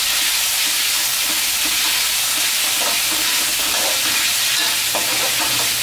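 Marinated pork slices and chopped garlic sizzling in hot lard in a wok, with a spatula stirring and scraping them against the pan.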